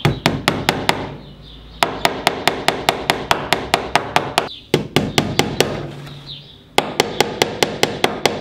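Small hammer tapping track pins through model railway track into a wooden baseboard: quick, light, evenly spaced taps about four a second, in runs broken by short pauses.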